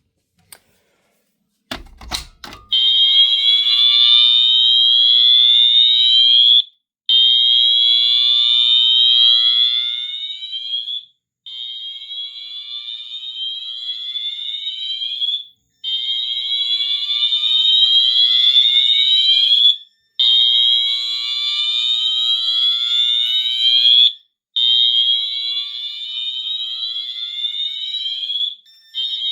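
Wheelock fire alarm horn sounding the slow whoop tone: a rising sweep about four seconds long, repeated with a brief break between each, starting about three seconds in after a few clicks. The loudness shifts from sweep to sweep.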